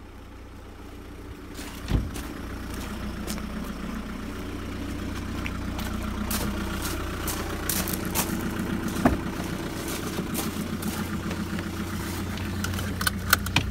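A car engine idling, its steady hum growing louder over the first several seconds, with footsteps on gravel and scattered knocks and clicks, a sharp one about two seconds in and several more near the end.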